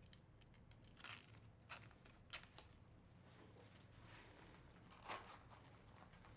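Faint handling sounds: a few soft crackles and rustles, about four in all, as a Velcro cable tie is pulled open and a cable is handled.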